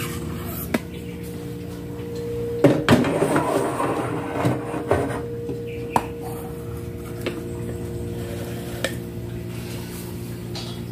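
A lidded stainless-steel pot being set down on a gas stove's metal burner grate: a loud clunk and clatter about three seconds in, then a few single metal clinks, over a steady low hum.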